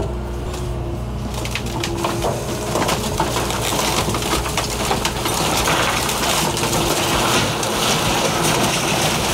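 A 40,000-pound excavator runs under load while its bucket pulls a wood-framed bathroom structure apart. Splintering and cracking wood start about a second in and build into sustained crunching as the structure collapses into the basement.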